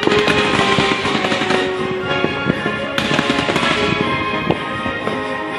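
Aerial fireworks bursting and crackling in quick succession, with dense crackle at the start and again about three seconds in, over music playing with held notes.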